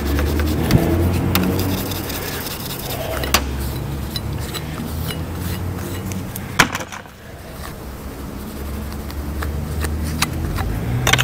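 Body-filler spreaders and a metal putty knife being wiped clean with an acetone-dampened rag: rubbing and scraping, with a few sharp clicks. A low rumble comes and goes underneath.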